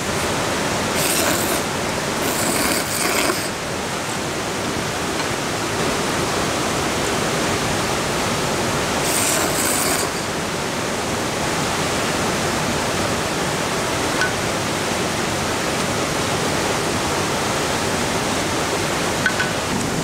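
Steady rush of a mountain valley stream, with a few short slurps of ramen noodles and broth about one, two to three and nine seconds in.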